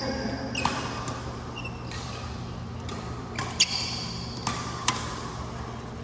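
Badminton rally: three sharp racket hits on the shuttlecock, spaced one to three seconds apart, with short high shoe squeaks on the court floor in between.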